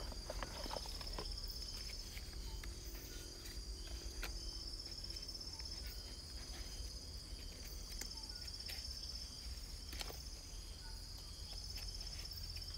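Night insects trilling: a steady high-pitched chorus that runs without a break, with a single sharp click about ten seconds in.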